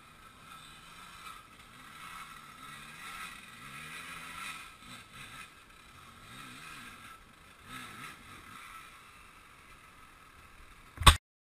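Faint dirt bike engine, its revs rising and falling unevenly as another rider climbs the trail. A single sharp knock comes near the end, and then the sound cuts off.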